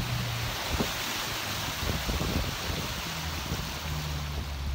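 A small boat's motor running steadily at low trolling speed, a low hum under a steady rush of wind and water on the microphone.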